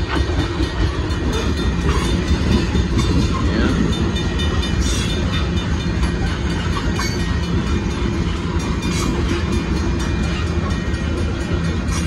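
Sand-loaded freight gondola cars rolling past at close range: a steady, loud rumble of steel wheels on the rails, broken by a few irregular clicks.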